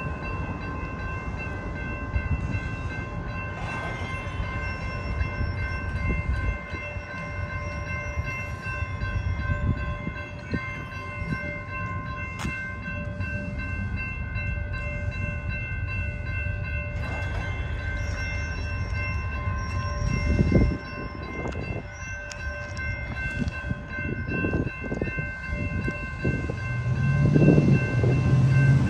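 Railroad crossing warning bell ringing steadily while the crossing signals flash, over a low rumble that swells near the end as a train approaches the crossing.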